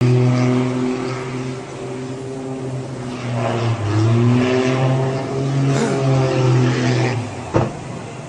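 Light aircraft's engine running with a steady buzzing drone that wavers and bends in pitch. It cuts out about seven seconds in and is followed by a single sharp impact.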